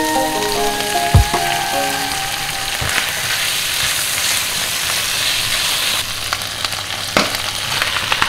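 Vegetables sizzling as they are stir-fried in a non-stick wok, with a few sharp knocks of the spatula against the pan. The sizzling grows louder about three seconds in.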